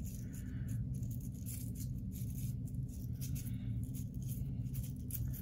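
Toothbrush bristles scrubbing a plastic faucet aerator insert in repeated short, irregular strokes, working mineral deposits out of its little openings, over a low steady hum.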